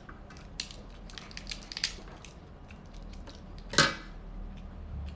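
Cooked king crab shell crackling and snapping as it is cut with kitchen scissors and broken apart by hand. A run of sharp cracks comes in the first two seconds, then one short, louder snap nearly four seconds in.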